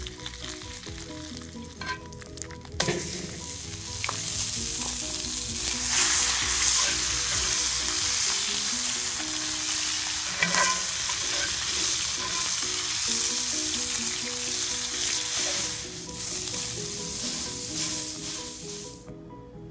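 Hamburger patty and bacon sizzling in a cast-iron skillet over a wood fire, a loud steady frying hiss that starts about three seconds in and cuts off near the end. A metal spatula clicks and scrapes against the pan a few times.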